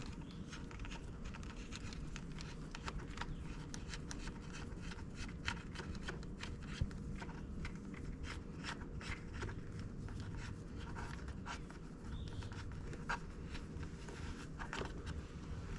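Electrical wire being pushed and pulled through a grommet into a boat's bilge: many small scattered clicks, scrapes and rustles of cable handling over a steady low hum.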